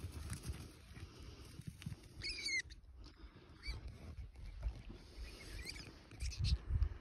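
Gusty rumble of wind on the microphone, with a short, high, wavering animal call about two seconds in and fainter calls a little later.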